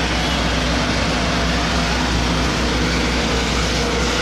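Steady, loud engine drone with a low hum and an even hiss over it, unchanging throughout.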